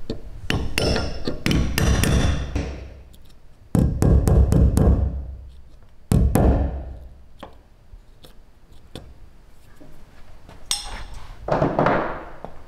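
Hammer striking a metal tool held against the thin sheet-steel roof of a Ford Transit, in four short runs of blows, with the roof panel ringing after each. The blows are folding freshly cut sheet metal under at the edge of a roof-rack mounting hole.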